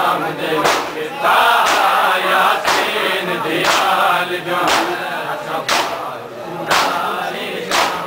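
A large crowd of men chanting a mourning lament together, with a sharp collective slap about once a second from hands beating on chests in unison (matam).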